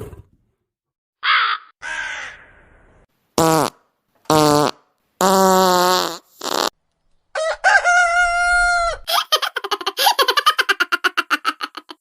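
A string of short comic sound effects, one after another with brief gaps: a quick falling whistle-like glide, several pitched toots and calls of different lengths, then a rattling sputter of fast pulses that fades out near the end.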